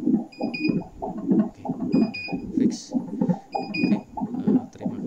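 Fetal Doppler's loudspeaker putting out a pulsing whoosh, about two beats a second, with short high beeps every second or so: the repaired probe is picking up a signal again.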